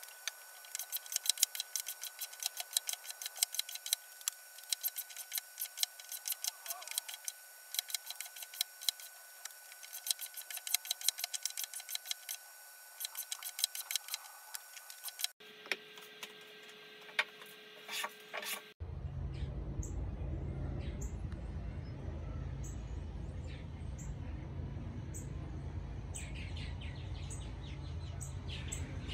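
Japanese hand plane (kanna) shaving wood, a rapid run of sharp strokes over a faint steady high tone. About 19 seconds in this gives way to a steady low rumble with birds chirping.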